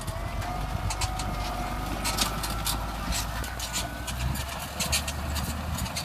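Massey Ferguson 6480 tractor's six-cylinder diesel running steadily under load, pulling a mounted plough through the soil, with frequent short clicks and knocks over the engine drone.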